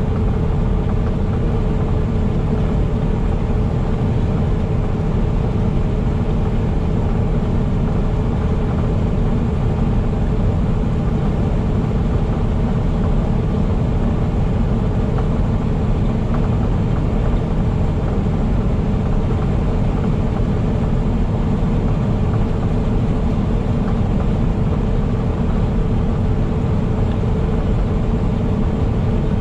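Semi-truck running at a steady cruise: an even low engine drone with road and tyre noise and a faint steady whine, unchanging throughout.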